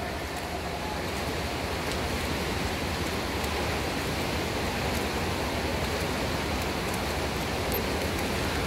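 Steady rushing noise of a swimming pool during a race: swimmers splashing through backstroke over a low, steady hum.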